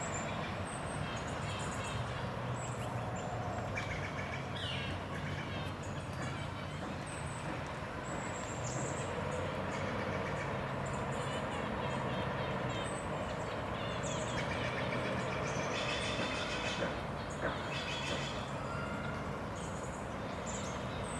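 Outdoor ambience: a steady low rumble like distant traffic, with scattered short bird chirps and calls over it.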